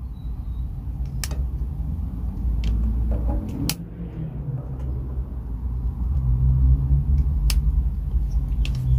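Several separate sharp clicks from candles being lit, over a steady low rumble.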